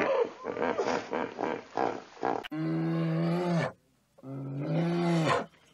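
A large animal's rapid rhythmic grunting, about five pulses a second. After a sudden change comes two long, low, steady-pitched roaring calls of about a second each, with a short call near the end.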